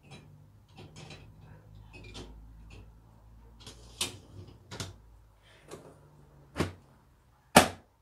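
Several light clinks and knocks as a cup is set in an Indesit dishwasher's upper rack. Near the end comes one loud knock as the dishwasher door is shut.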